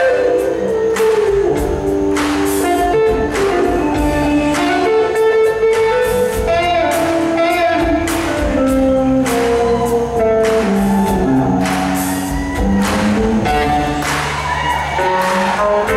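Live rock band: a Les Paul-style electric guitar plays a lead solo of held, stepping notes over a steady drum beat.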